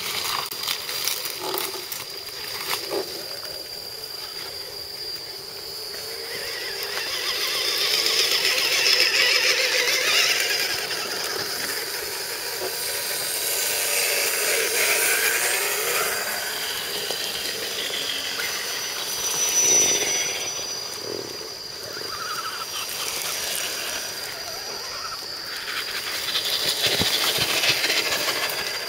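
Steady high-pitched insect drone that swells and fades several times, mixed with the faint crunch of dry leaves and the electric whine of 1:10 scale RC crawler trucks creeping down a leaf-strewn dirt trail.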